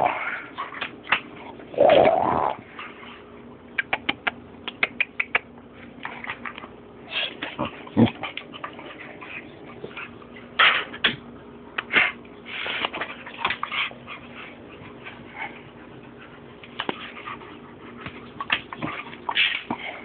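Boxer puppy growling in short bursts while it plays at and mouths a person's hand, with a quick run of clicks between about four and five seconds in.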